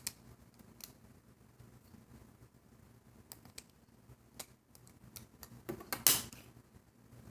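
Irregular light clicks and taps of a loom hook working rubber bands up over the pins of an Alpha Loom, with one louder click about six seconds in.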